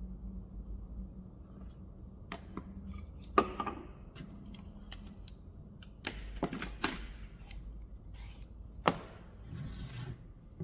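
Scattered sharp clicks and knocks of hard objects being handled and set down, in a small room. The loudest is about three and a half seconds in, a cluster comes around six to seven seconds, and a single sharp one comes about nine seconds in. A steady low hum runs underneath.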